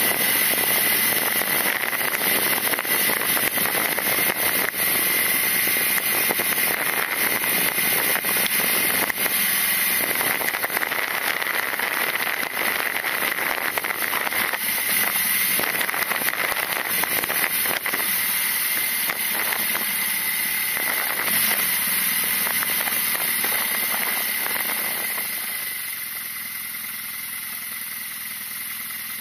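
BMW R nineT's flat-twin boxer engine running as the motorcycle is ridden at road speed, under a steady hiss of wind and road noise. It grows quieter over the last few seconds.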